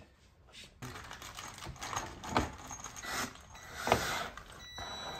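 Metal screws and a hex key clicking and rattling as a large woofer is fitted into a wooden subwoofer cabinet, with a few sharper knocks. Near the end a cordless drill starts running steadily, driving a woofer mounting screw.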